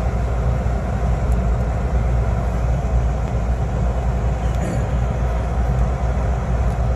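A car's engine runs with a steady low rumble, heard from inside the cabin.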